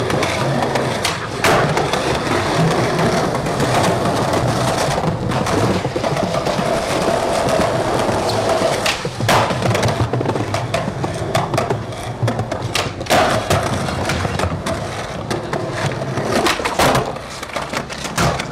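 Skateboard wheels rolling over concrete plaza slabs in a steady rumble, broken several times by sharp clacks of the board popping and landing. It is recorded through a faulty camcorder microphone.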